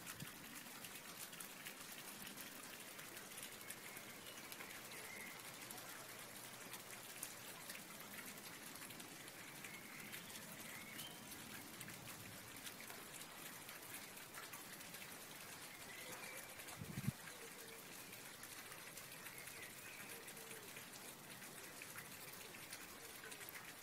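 Faint, steady outdoor background hiss with scattered light ticks, and one low thump about seventeen seconds in.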